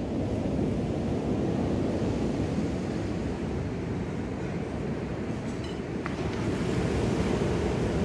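Ocean surf: small waves breaking and washing onto a sandy beach in a steady hiss, with one wave swelling louder near the end.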